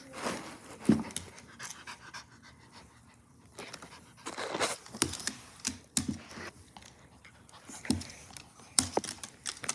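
Pomeranian breathing hard in irregular short breathy bursts, with scattered clicks and a sharp knock about a second in.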